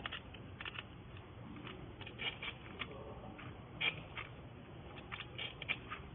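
Chainsaw chain teeth being sharpened one by one on a diamond rod, making short, irregular scrapes and clicks.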